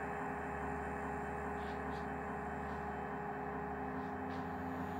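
A steady hum made of several held tones, with a few faint soft ticks scattered through it.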